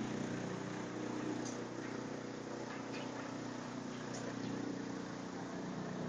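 Waste-wood chipper machine and its feed conveyor running: a steady mechanical hum with an even hiss over it.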